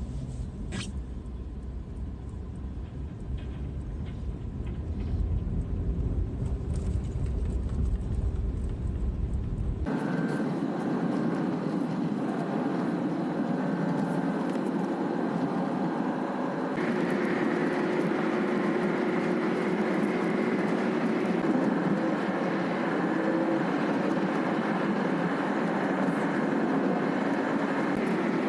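Motor vehicle running steadily. A deep rumble lasts about ten seconds, then it changes abruptly to a brighter, higher engine noise with a steady hum that comes in later.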